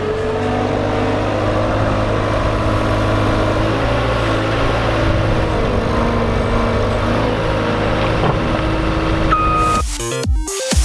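Cat skid steer's diesel engine running steadily as it works, with a single short high beep near the end. Electronic music cuts in at the very end.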